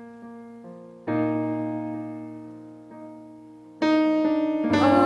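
Keyboard playing slow piano chords, one struck about a second in and another near four seconds, each left to ring and fade. A voice starts singing over them near the end.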